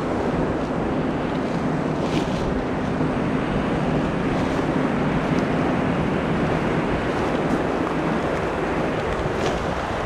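Surf washing on the shore and wind buffeting the microphone in a steady rush.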